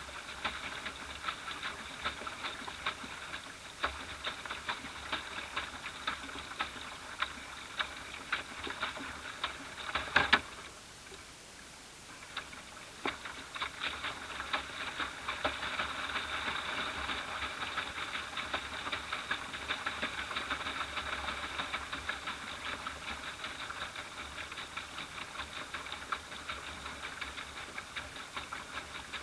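Small boat moving across a lake, with water lapping and pattering against the hull in a rapid ticking. About ten seconds in there is one loud knock, a lull of a couple of seconds, then the lapping resumes.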